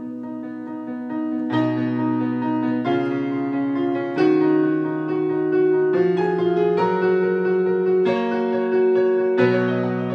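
Piano music: slow, sustained chords, with a new chord struck about every second and a half and left to ring.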